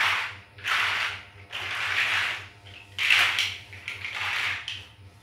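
Loose plastic toy building bricks rattling and clattering as they are handled, in about five rough bursts.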